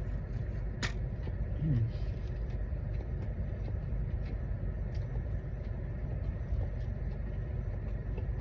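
Chewing and mouth clicks over a steady low rumble, with one sharper smack about a second in and a short hummed "mm" just before two seconds.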